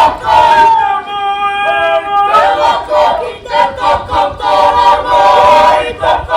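Māori cultural performers singing and chanting together in unison, male voices prominent.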